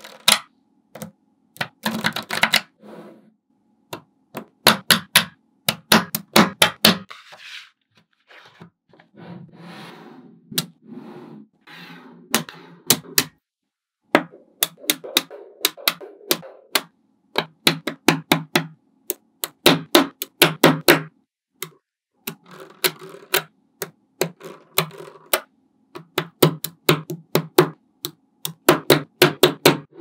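Small magnetic balls clicking and snapping together in quick runs of sharp clicks as they are pieced into a model. Softer rattling stretches fall between the runs.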